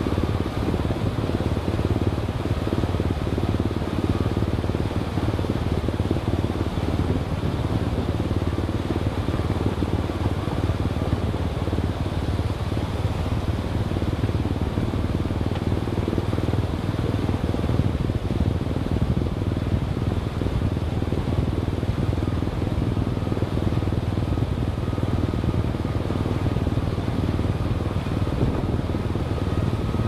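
Steady engine and road noise from a vehicle driving, even throughout with a faint steady whine above it.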